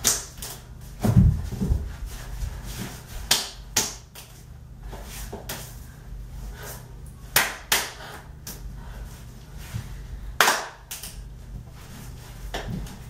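Hand claps and slaps from two people doing a clapping handshake routine: sharp strikes in short irregular groups, with gaps of a second or more between them.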